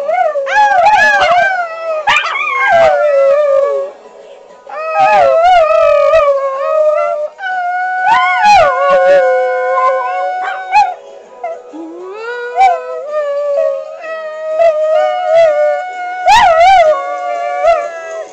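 Several small pet dogs howling together in long, wavering howls that rise and fall in pitch, 'singing' along to music playing from a laptop. The howling breaks off briefly about four, seven and a half and twelve seconds in.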